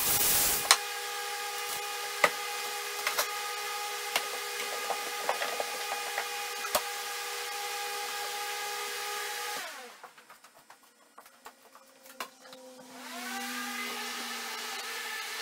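Wood lathe running with a steady whine and scattered sharp ticks, winding down to a stop about two-thirds through, then spinning back up a few seconds later.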